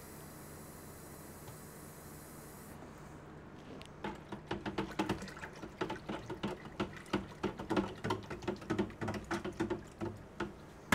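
Faucet running reverse-osmosis water into a plastic bucket, shut off about three seconds in. Then a fast, irregular run of splashes and knocks as the nutrient solution in the bucket is stirred.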